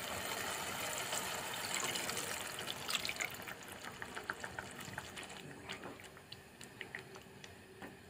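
Water poured into a hot pan of oil and ground paste, hissing and sizzling strongly for about three seconds, then settling into scattered crackles that fade.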